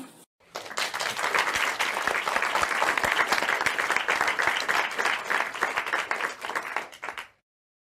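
Applause, many hands clapping in a dense, even patter that starts about half a second in and cuts off suddenly about seven seconds in.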